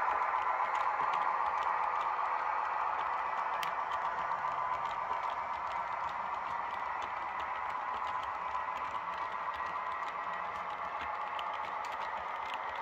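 Model train of a class 218 diesel locomotive and passenger coaches rolling along the track: a steady rattling run of wheels and motor with many small clicks, slowly fading as it moves away.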